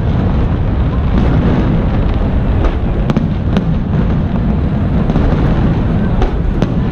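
Aerial fireworks shells bursting in a continuous low rumble of booms, with a few sharp cracks around the middle and near the end.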